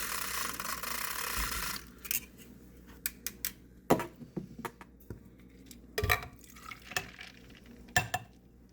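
A steady hiss for about the first two seconds, then scattered clinks and taps of a utensil knocking against a cup as a drink is stirred.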